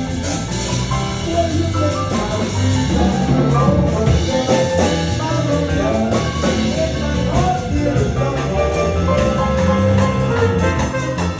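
Live New Orleans jazz band playing.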